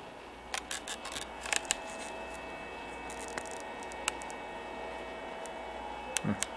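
Steady hum of aquarium equipment with a few faint constant tones over it, broken by clusters of sharp clicks and rustles of the camera being handled, about half a second to two seconds in and again near the end.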